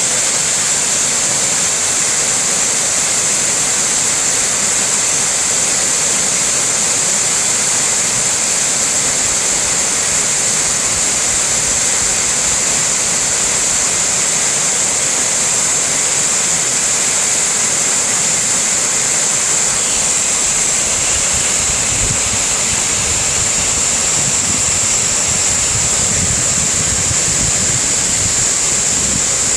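Waterfall, the water falling in a loud, steady, even rush. A low rumble joins in during the last third.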